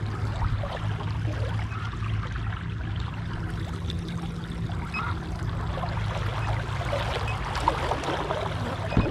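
Water splashing and lapping against a kayak's hull as it moves, over a steady low hum. There is a single short knock near the end.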